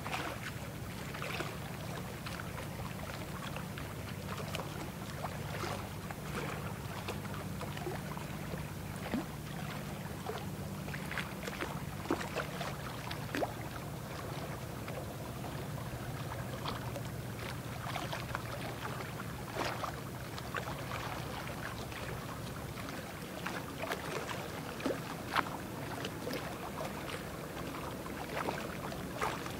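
Low, steady engine drone of a large passing ship, with water from its bow wave splashing and lapping. The drone fades away about two-thirds of the way through, leaving the splashing water.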